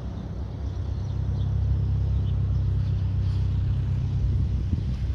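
SOCATA TB 10 Tobago's four-cylinder Lycoming piston engine and propeller running at low taxi power: a steady low drone that grows a little louder about a second in.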